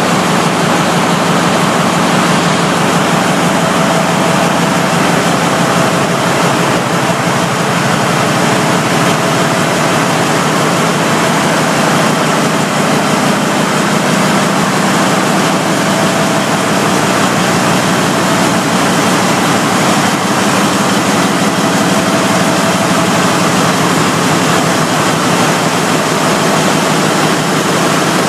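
Large turbocharged V-type MAN diesel engine running on test, a loud, even noise with a fast pulsing beneath it.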